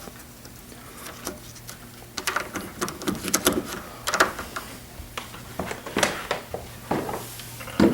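Irregular light clicks and taps of deadbolt lock hardware being handled against a door, as the new plate is test-fitted into a freshly enlarged recess.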